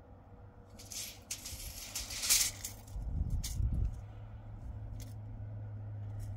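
A van's engine running low and steady, coming in about halfway through and growing slightly louder. It follows a couple of seconds of loud hissing noise, and a few sharp clicks sound over it.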